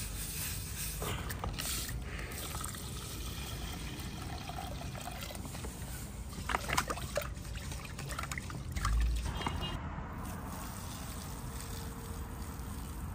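Rice being rinsed by hand in water in an aluminium pressure-cooker pot, the water sloshing, with a few sharp knocks near the middle. Near the end the cloudy rinse water trickles off as it is poured out of the pot.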